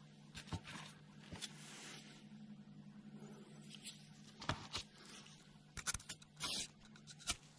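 Faint, scattered clicks and short scraping noises of something being handled, over a steady low hum.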